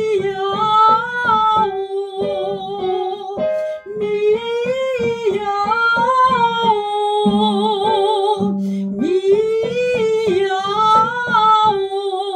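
A woman singing a vocal warm-up exercise, a short phrase that climbs and comes back down, repeated three times, with piano notes played under the voice and on their own between the second and third repeats.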